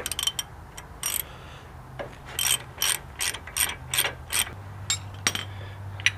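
Ratchet wrench clicking in short strokes as a suspension nut is loosened, the clicks coming about two a second for part of the run.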